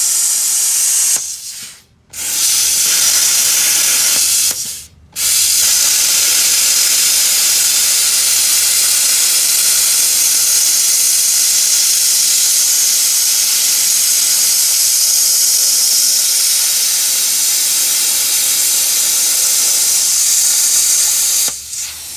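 Hypertherm Powermax 45 XP plasma cutter cutting through half-inch steel plate and weld: a loud, steady hiss of the arc and air jet. It cuts out briefly twice in the first five seconds and stops near the end.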